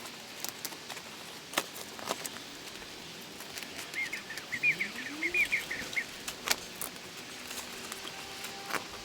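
A bird gives a quick run of about ten chirps for a couple of seconds in the middle, over scattered light clicks and knocks from tent poles and pegs being handled while a bivvy is pitched.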